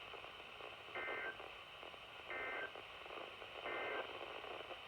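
Three short squawks of Emergency Alert System digital data on NOAA Weather Radio, each about a third of a second long and about 1.3 seconds apart, over steady radio hiss: the End-of-Message code that closes the alert.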